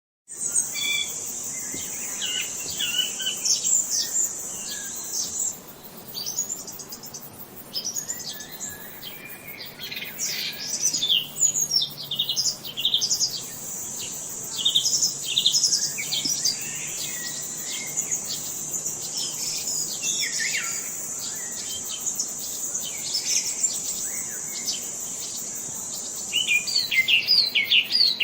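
Several songbirds chirping and singing in quick, overlapping phrases. Behind them a steady high-pitched insect drone drops out about five seconds in, returns about halfway through and stops near the end.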